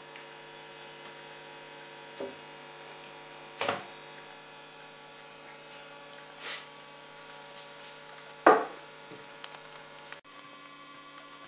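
Steady mains hum from a homemade transformer-powered amplifier and speaker idling with no music playing, broken by four short clicks and knocks, the loudest about two-thirds of the way through.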